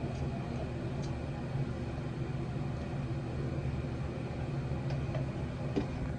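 Steady low mechanical hum, like a running motor or appliance, with a few faint clicks.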